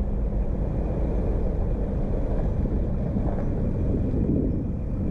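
Narrowboat's diesel engine running steadily at cruising speed, a low, even sound with no change in pace.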